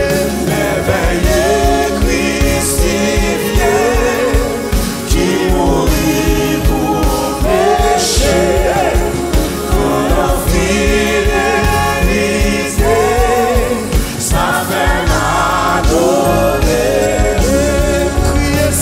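Live gospel worship song sung in Haitian Creole, a man leading with a woman and other backing singers, over a band with a drum kit.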